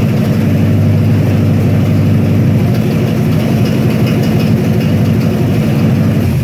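Farm truck engine running loudly at a steady speed, cutting off at the very end.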